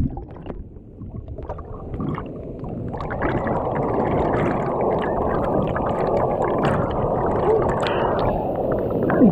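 Rushing water, quiet at first, then building over the first few seconds to a steady, noisy rush.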